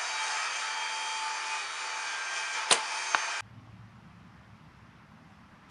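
A bow shot: the sharp crack of the string's release and, about half a second later, the smack of the arrow striking the target. Both sound over a steady rushing drone that cuts off abruptly just after, leaving it much quieter.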